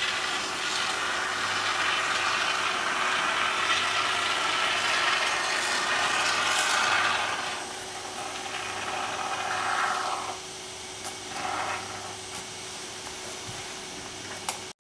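Aerosol can of flame-resistant expanding spray foam hissing as foam is pushed through its applicator into the gap around a window frame. One long spurt of about seven seconds is followed by two shorter ones, with a single sharp click near the end.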